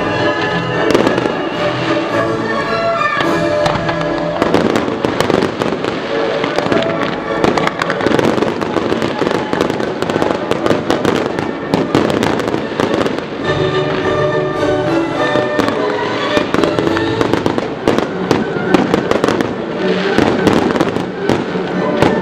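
Fireworks display: aerial shells and comets going off in rapid bangs and crackles over the show's music, thickest in the middle of the stretch and again near the end.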